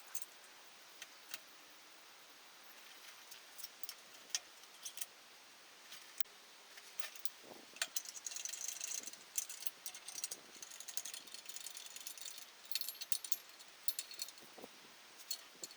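Light metallic clinking and jangling of tools and small engine parts being handled. Scattered single clinks at first, growing busier about halfway through.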